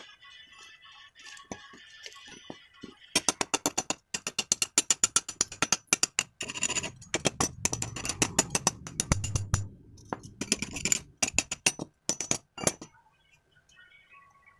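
Rapid metal-on-metal strikes from a hand hammer knocking at freshly stick-welded steel joints, the kind of tapping that chips off welding slag. The strikes start about three seconds in, come several a second with a few short breaks, and stop shortly before the end.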